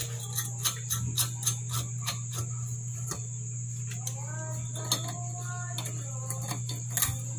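Irregular sharp metallic clicks and taps as the turbo broiler's metal convection fan blade is fitted onto its motor shaft and a tool is worked at the shaft nut, over a steady low hum. About four seconds in, a faint voice-like sound comes twice.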